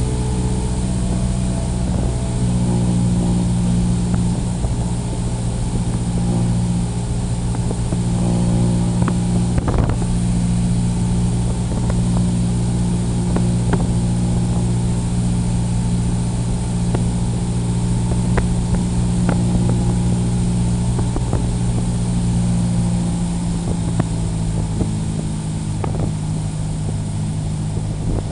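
Cessna 172's piston engine and propeller running steadily, with the engine note dropping slightly about three quarters of the way through.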